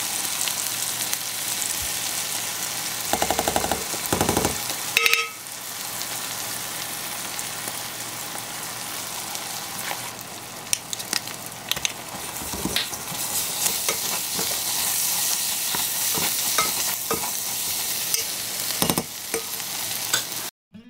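Ground pork, onions and mushrooms sizzling in a pot, a steady frying hiss. A spoon scrapes and knocks louder a few seconds in and clicks against the pot later, as sesame seed paste is added and stirred in. The sound cuts off just before the end.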